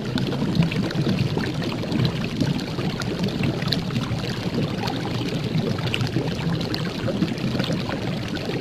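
Water rushing and splashing steadily, the churn of a moving boat's wake, with small splashes scattered through it.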